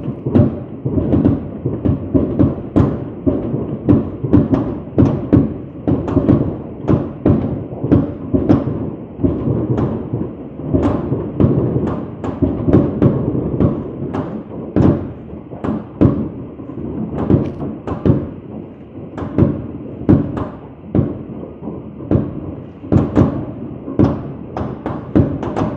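Fireworks going off in a dense, continuous barrage: many overlapping low booms and thuds with sharper cracks among them.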